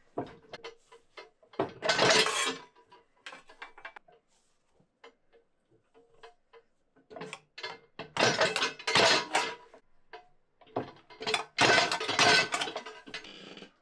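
Thin copper sheet clattering and clinking against a steel press die as it is pushed over the die edge and folded by hand, in three bouts of rattling: about two seconds in, around eight to nine and a half seconds, and from eleven to thirteen seconds, with small ticks between.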